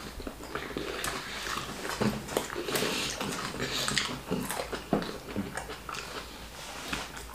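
Close-up mukbang eating sounds: wet chewing and lip-smacking on plantain fufu with ogbono and egusi soup, as a run of irregular short smacks and squelches, busiest in the middle.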